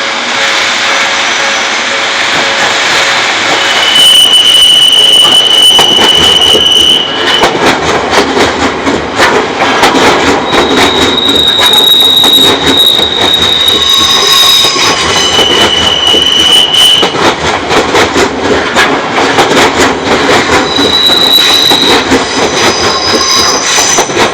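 Odakyu electric commuter train passing close by, its wheels clicking rapidly over rail joints, with high steady wheel squeals that come and go several times, each lasting one to three seconds.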